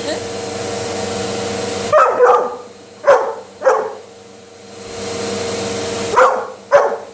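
Dog barking in short, sharp barks at a running vacuum cleaner, in two groups: four barks about two to four seconds in, then two more near the end. The vacuum's steady hum runs beneath, dropping away briefly in the middle before coming back.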